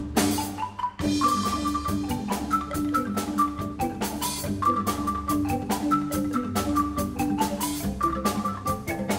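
Background music: a tune of mallet-percussion notes over a steady beat.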